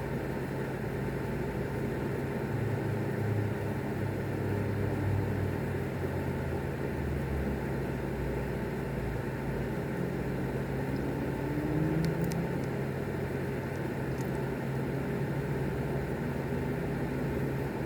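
Steady low mechanical hum over a constant hiss, with a few faint low swells and two brief clicks about two-thirds of the way in.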